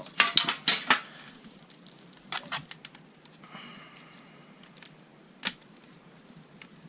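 Sharp clicks and taps of plastic parts being worked by hand in an original Xbox disc drive's tray mechanism: a quick cluster in the first second, two more about two and a half seconds in, and a single click later.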